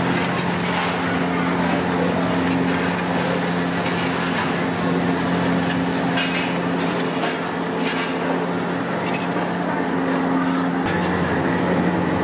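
Metal spatula scraping and knocking against a large iron kadai of fried fish pieces, several times. Behind it is a steady loud roar with a low hum.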